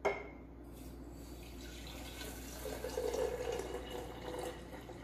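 Water poured from a glass measuring jug into a glass mason jar of seeds: a short knock at the very start, then a steady pouring trickle that swells about halfway through.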